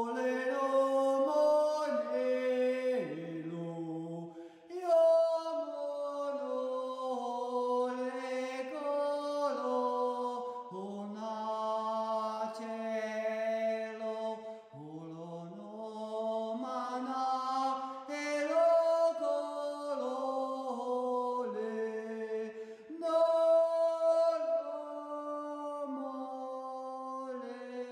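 A sung chant in slow, held notes that step up and down in pitch, used as background music for a breathing meditation.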